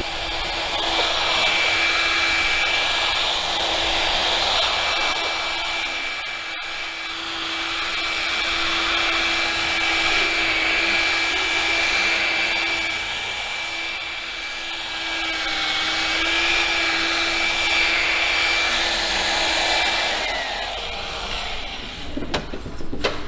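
Ryobi electric polisher with a wool buffing pad running steadily on the painted back door of a Suzuki Wagon R, a motor whine at a steady pitch with loudness rising and falling as the pad is worked over the panel. The motor winds down about 20 seconds in, followed by a few handling knocks.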